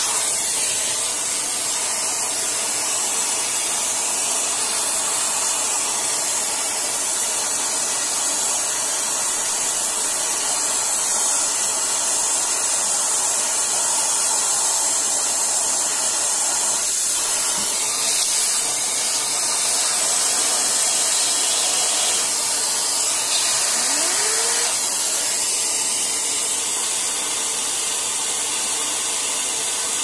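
Vacuum cleaner running steadily, its hose nozzle drawing air and dust through the copper fins of a graphics-card heatsink and over its cooling fan: an even, loud rushing hiss.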